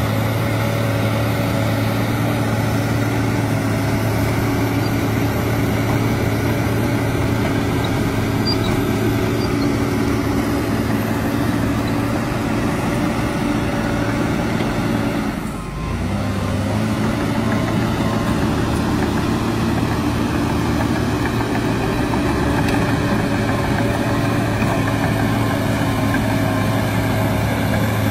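Crawler dozer's diesel engine running steadily under load as it pushes dirt and rock down a slope. The sound dips briefly about halfway through, then carries on the same.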